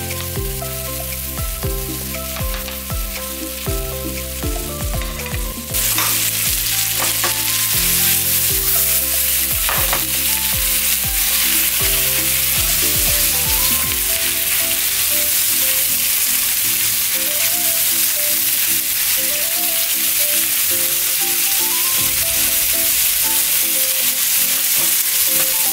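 Canned corned beef and onions sizzling in oil in a frying pan while being broken up and stirred with a fork and a wooden spatula, with a few scrapes of the utensil on the pan. The sizzling gets louder about six seconds in.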